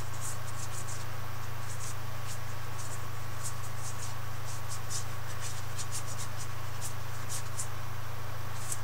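Paintbrush scratching and dabbing on a painting in quick, uneven short strokes, over a steady low hum.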